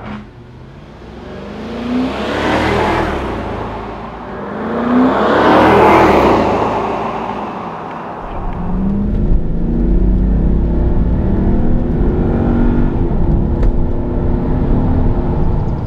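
Jaguar XK8's V8 on the standard exhaust, accelerating past at the roadside: the engine note climbs and swells twice. After about eight seconds it is heard from inside the cabin, pulling steadily with a heavy low drone.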